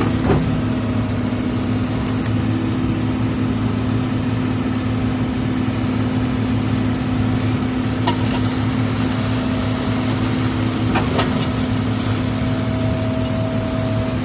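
Excavator's diesel engine running steadily with a constant hum, with a couple of faint knocks about eight and eleven seconds in.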